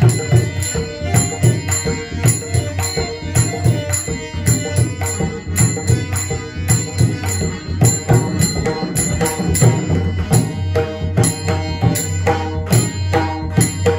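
Marathi bhajan: an abhang sung to pakhawaj drum and small hand cymbals (taal), the drum and cymbal strokes keeping a quick, even rhythm of about three to four strikes a second.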